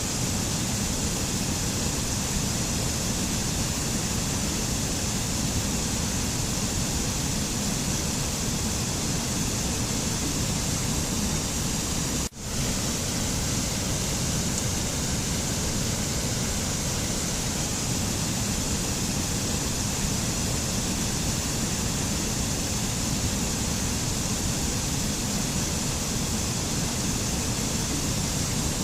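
Steady rushing noise of running water, like a mountain waterfall or torrent, even and unchanging. It drops out for an instant about twelve seconds in, where the recording loops.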